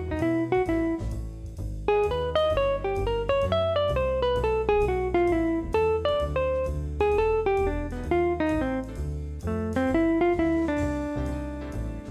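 Background music: a plucked guitar melody moving in repeated falling runs over a bass line.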